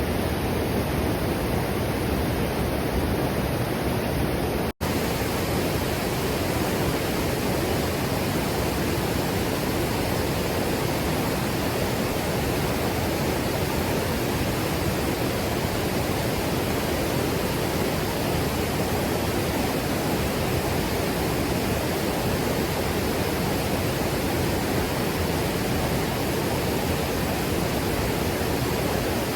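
Steady rushing water noise, with a brief dropout from an edit about five seconds in.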